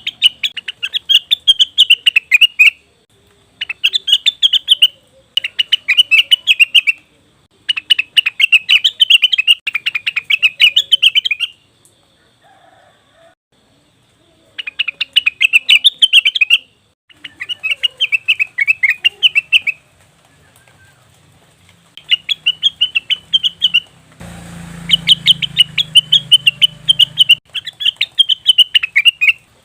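Cucak wilis (a leafbird) song played as a lure: rapid high chattering phrases of a second or two each, repeated with short pauses. A low hum briefly underlies one phrase near the end.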